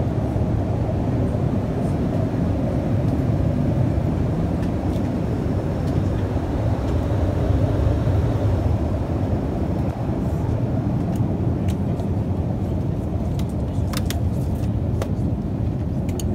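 Steady cabin noise of an Airbus A380-861 in flight: a low, even rush of airflow and engine drone. A few faint clicks come near the end.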